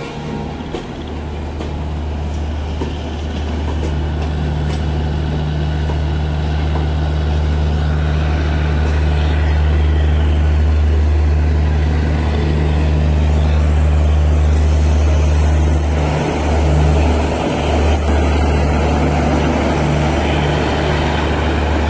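A passenger train rolling slowly past, its coaches hissing over the rails, under a steady low drone from the diesel generator of the train's end power car. The drone grows louder as the power car comes close.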